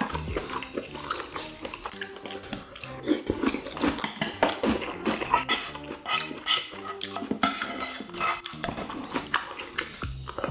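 Wooden spoon and chopsticks scraping and clinking in a nonstick frying pan, stirring and scooping saucy stir-fried baby octopus and large intestine, with many short clicks and scrapes.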